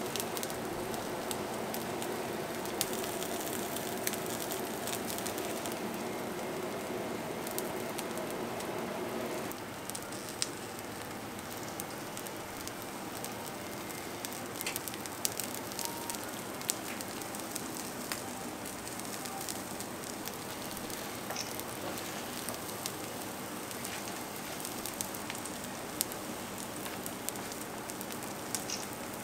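Food sizzling over gas flames: a steady crackling hiss with scattered light clicks and taps. A lower steady hum under it stops about nine and a half seconds in.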